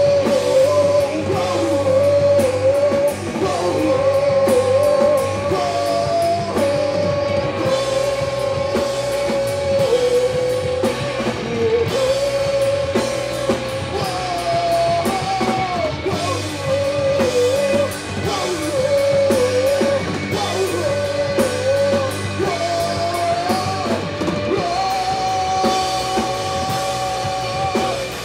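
Rock band playing live: a voice singing long held notes over guitars, bass guitar and a drum kit.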